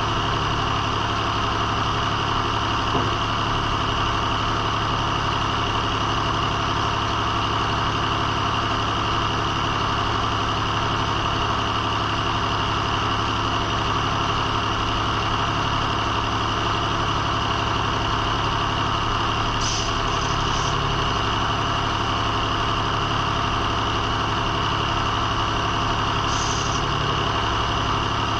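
Circle sawmill's engine running at a steady, unchanging speed, with a low hum and a thin high whine over it.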